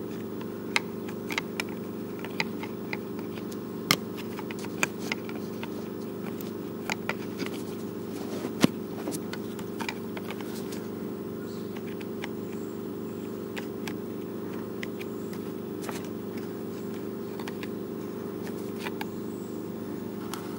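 Small sharp clicks and taps of metal picks against a Stihl string trimmer's plastic recoil starter housing and pulley, as the pull cord is fished through the pulley hole. The clicks come often in the first half and thin out later. A steady low hum runs underneath.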